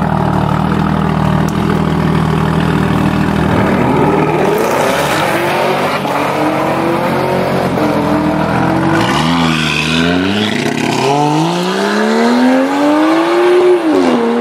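Car engine running at a steady pitch, then accelerating hard from about four seconds in. Its pitch climbs and falls back at each upshift, about nine seconds in and again just before the end.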